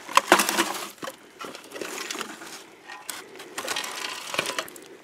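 Dry leaves and twigs crackling and rustling in irregular bursts, with a few sharp clicks and snaps, as a trophy is picked up and moved about on the forest floor.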